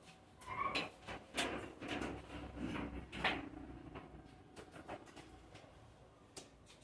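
Wiring harness being pushed through a hole in a pickup's firewall: irregular scraping and rustling with light knocks, busiest in the first three seconds or so, then a few scattered clicks.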